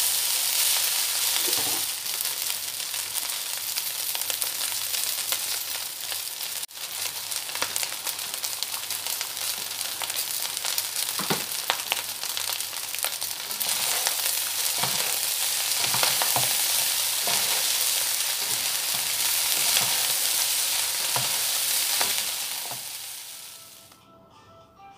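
Fried rice sizzling in a hot nonstick pan as it is stirred with a wooden spatula, with scattered scrapes and knocks of the spatula on the pan. The sizzling fades out near the end.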